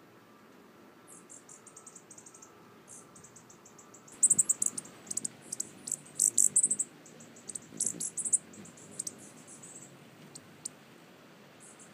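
Hummingbirds' rapid, very high-pitched chip notes and chatter, in short quick series, much louder and denser from about four seconds in as a hummingbird hovers close at a hand-held feeder, with the low hum of its wingbeats. The chatter eases off near the end.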